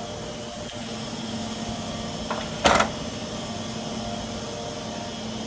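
Steady background hum, with a faint tick and then one short knock just under three seconds in as transmission parts are handled on the bench.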